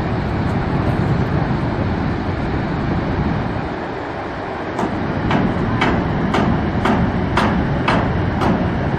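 Steady rushing roar of Niagara's Horseshoe Falls heard close to the brink. From about halfway through, a regular series of sharp clicks, about two a second, sounds over it.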